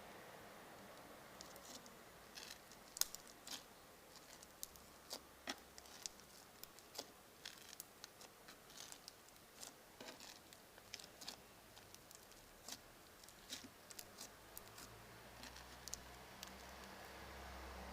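Crunchy slime being pressed by hand, giving faint, irregular small pops and crackles, a few a second. A low rumble of road traffic rises near the end.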